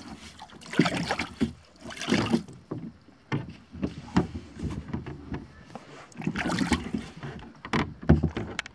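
Kayak paddling: irregular paddle strokes with water splashing and dripping off the blades, and a few sharp knocks in between.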